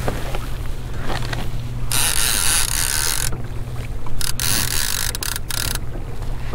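Fishing reel ratcheting in two stretches, about two seconds in for a second and a half and again about four seconds in for two seconds, over a steady low hum.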